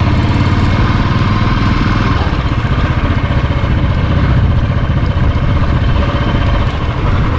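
Royal Enfield Bullet 350's single-cylinder engine running steadily as the motorcycle is ridden, a fast even exhaust beat.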